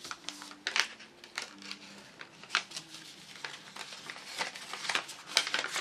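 A sheet of paper rustling and crackling as it is handled, folded and pressed flat by hand, in irregular short crisp crackles several times a second.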